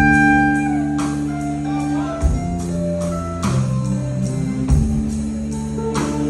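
Live rock band playing an instrumental passage: held, changing guitar and keyboard notes over drums, with a few heavy drum and cymbal hits.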